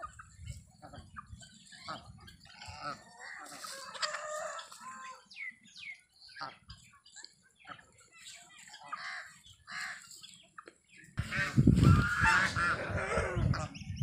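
A mixed flock of free-range poultry calling: white ducks and chickens giving a string of short calls and clucks. The calls come thickest about three to five seconds in and are loudest near the end.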